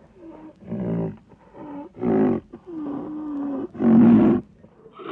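A koala bellowing: a series of deep, rasping calls about one a second. Three are loud, and a steady drawn-out droning call comes between the second and third.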